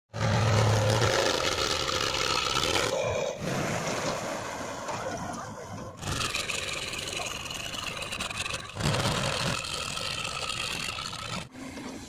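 Diesel engines of a Powertrac Euro 50 tractor and a JCB 3DX backhoe loader running under load through muddy ground. The sound comes in short clips that cut off abruptly about every three seconds.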